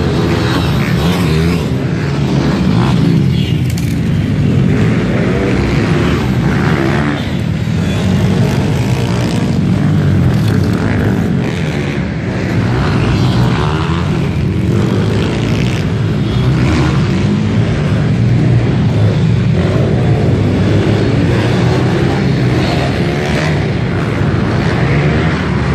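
Several pit bike engines racing, revving hard and dropping back over and over with overlapping rising and falling pitches, loud and echoing inside an arena hall.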